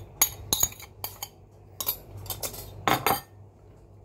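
Cutlery clinking and scraping against a ceramic plate and bowl during a meal of rice and adobo: a string of short, sharp clinks, the loudest cluster about three seconds in.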